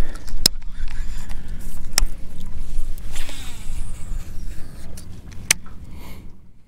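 Wind buffeting the microphone on an open boat: a steady low rumble that rises and falls, with three sharp clicks.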